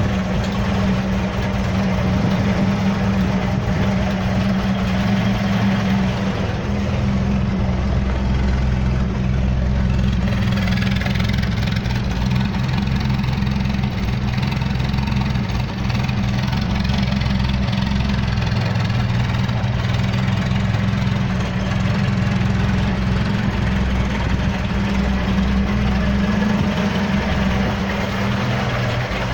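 1973 Mazda B1600 pickup's 1.6-litre four-cylinder engine idling steadily, with no revving.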